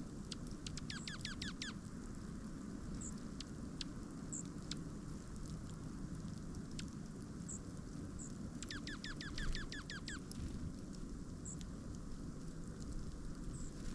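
Small bird giving quick runs of sharp, falling nasal calls, about seven a second, once at the start and again about nine seconds in, with scattered short high chips from birds in between, over a steady low background noise.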